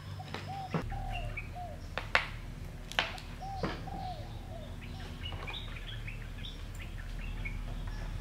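Birds chirping and calling over and over in short arched calls, while a metal ladle knocks against an aluminium cooking pot several times in the first four seconds, the sharpest knocks about two and three seconds in. A low steady hum runs underneath.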